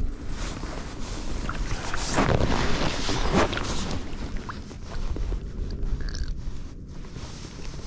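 Water splashing and sloshing close to the microphone, loudest about two to three and a half seconds in, over a steady rumble of wind on the microphone.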